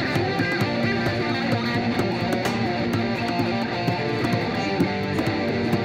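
Background music: strummed and plucked guitar with bass, at a steady pace.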